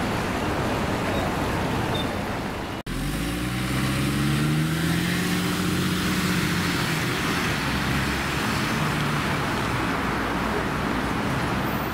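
Steady road noise from inside a moving vehicle. After a cut about three seconds in, street traffic at a bus stop, with a nearby large engine's hum rising and then easing off in pitch.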